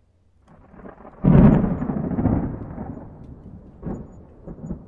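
Cinematic explosion sound effect for an animated intro: a short rising rush, then a deep boom about a second in that rumbles away, with two lighter hits near the end.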